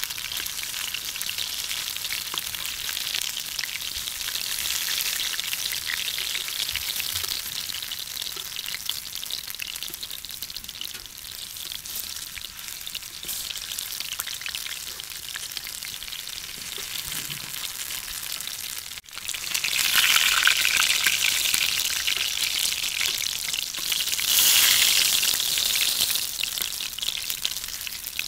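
Battered cauliflower pakoras (gobi pakora) sizzling in hot oil in a frying pan as they are turned. The sizzle drops out for a moment about two-thirds of the way through, then comes back louder.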